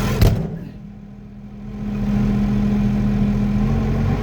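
Diesel tractor engine idling steadily. A single sharp knock about a quarter second in is followed by the sound going quieter and muffled for about a second and a half, then it comes back to full level.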